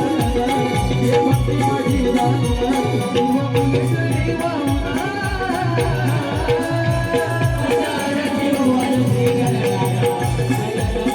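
Devotional folk music of a Konkan naman troupe in praise of Ganesh: a singing voice over steady held tones, a regular drum beat and jingling rattle-like percussion.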